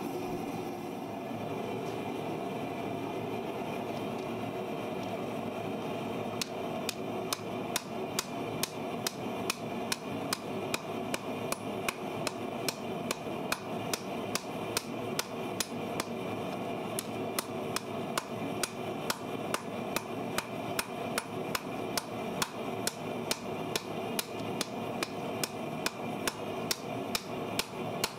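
Hammer blows on a red-hot piece of farrier's rasp lying on an anvil. The blows come steadily, about two and a half a second, starting several seconds in, over a steady rushing background noise.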